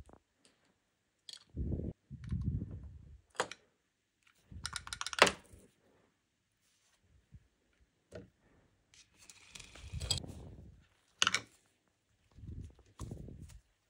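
Plastic clicks and handling rubs from a BMW key fob being opened and its CR2450 coin-cell battery swapped. Several sharp clicks, the loudest about five seconds in, fall between bouts of low rubbing.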